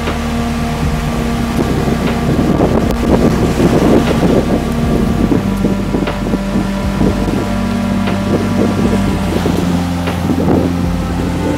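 Background music of sustained chords that change about halfway through and again near the end, over a steady rushing noise.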